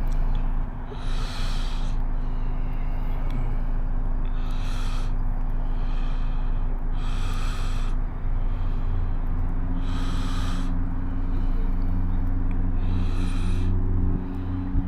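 Heavy breathing close to the microphone, with a hissing breath about every three seconds, over a steady low engine hum that changes pitch slightly about two-thirds of the way through.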